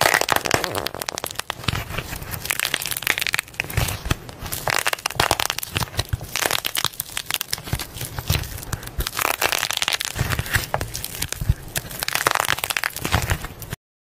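Thick, clay-like slime being squeezed and stretched by hand, giving dense, irregular crackling and sticky clicking.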